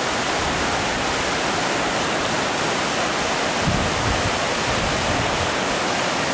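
Floodwater rushing fast over a flooded golf course, a steady, even roar of running water with no letup, with a brief low rumble a little past the middle.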